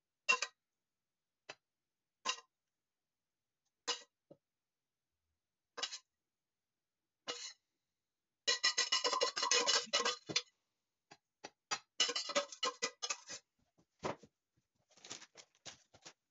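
A metal spoon clinking and scraping against a stainless steel pan and a glass baking dish as enchilada sauce is spooned out and spread. Single clinks come every second or two at first, then quick runs of scraping about halfway through and again later.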